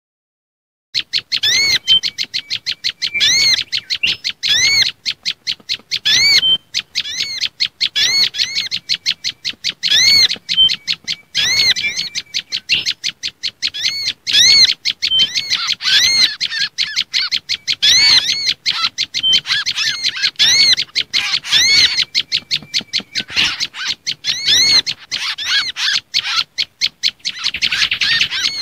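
Bird-lure recording of small songbirds calling in agitation: prenjak lumut calls mixed with mangrove whistler (kancilan bakau) and sunbird (sogon) calls. A fast, unbroken run of sharp high chirps, with louder phrases every second or two, starting about a second in.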